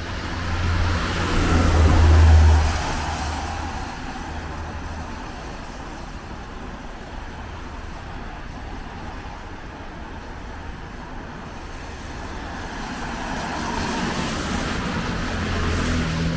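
Road traffic on a wet highway. A vehicle passes about two seconds in, with engine hum and tyre hiss that swell and then fade. A second vehicle approaches near the end.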